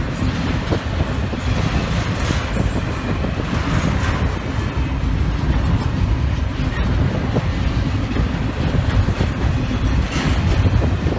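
Train rolling past: a steady, loud low rumble of railroad cars with scattered clicks from the wheels on the rails.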